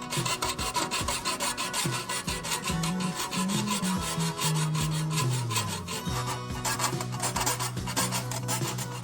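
Rapid, repeated rasping strokes of a hand file working a steel saw blade, several strokes a second.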